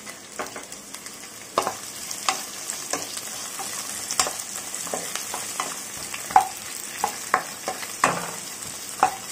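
Sliced onions frying in groundnut oil in a nonstick kadai, a steady sizzle, while a wooden spatula stirs them, with irregular knocks and scrapes of the spatula against the pan.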